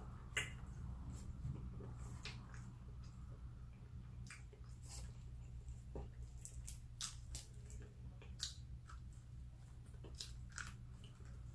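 Chewing and biting into crunchy fried chicken: irregular short crunches and clicks over a low steady hum.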